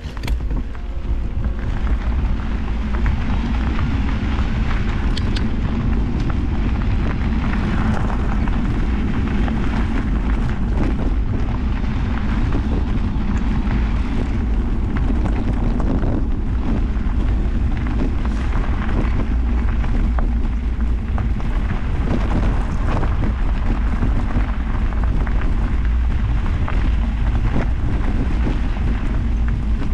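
Wind buffeting the microphone of a camera worn by a rider on a mountain bike, over a steady rumble of the tyres on a gravel track, with frequent small crunches and rattles from the stones and the bike. It starts up about half a second in.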